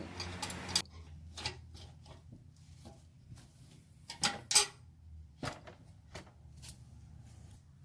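Scattered clicks and knocks of a socket tool and the screws of the truck's black underbody cover being removed, with a short rasping noise at the start and two sharper knocks about four and a half seconds in.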